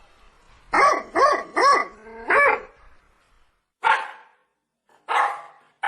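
Rajapalayam dog barking: a quick run of four loud barks, then two more spaced well apart.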